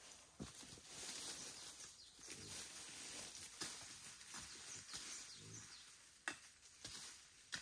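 A pig grunts low and short twice in dry bamboo leaf litter, among scattered light snaps and crackles, over a faint steady hiss of forest ambience.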